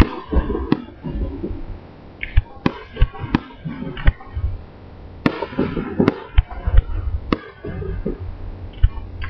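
Aerial firework shells bursting in an irregular series of sharp bangs, about a dozen, with crackling and low rumbling booms between them.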